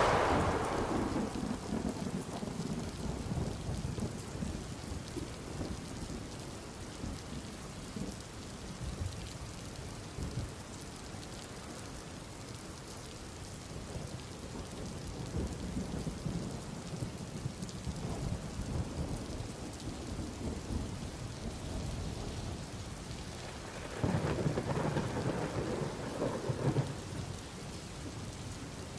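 Storm wind gusting hard, buffeting the microphone with a low, crackly rumbling rush, and a stronger gust near the end.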